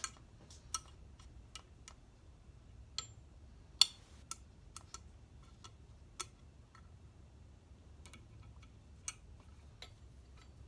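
Irregular light clicks and taps of hard parts being handled while a scrap lamp is taken apart, with one sharper knock a little under four seconds in.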